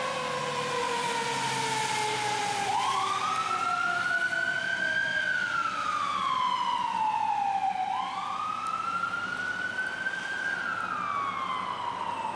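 Emergency vehicle sirens. One siren's tone slides slowly down in pitch over the first few seconds while a second siren comes in about three seconds in with a slow wail, rising and falling twice.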